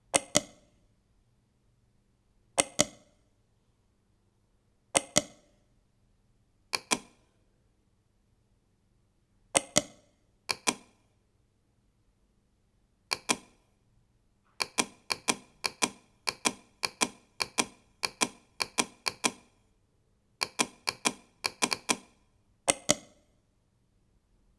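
Computer mouse clicking close to the microphone, the clicks mostly in quick pairs. They are spaced out at first, then come in a fast run of many clicks in the second half.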